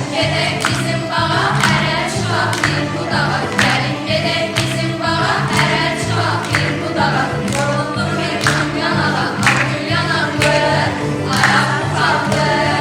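A song sung by a group of voices over musical accompaniment, with a steady beat about once a second.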